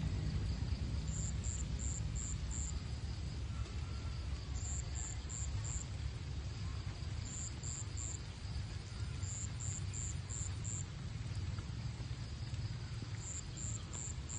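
Insect chirping in short runs of three to five high pulses, repeating every few seconds, over a steady low rumble.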